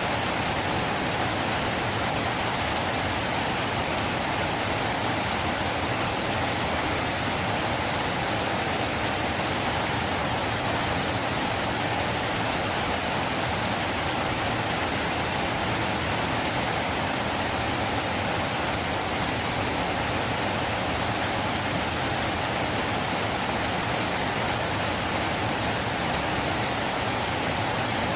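River water flowing, a steady, even rushing that does not change.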